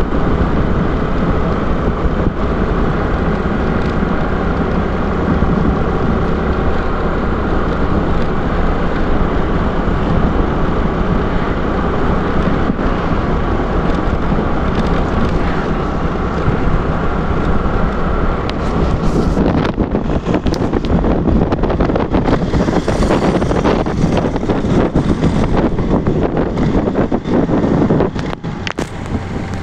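Honda scooter's engine running steadily while riding. From about two-thirds of the way through, wind buffeting the microphone takes over as the loudest sound.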